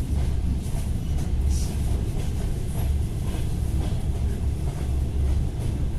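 ED4M electric multiple unit running on the rails: a steady low rumble that swells and eases every second or so, with faint clicks over it.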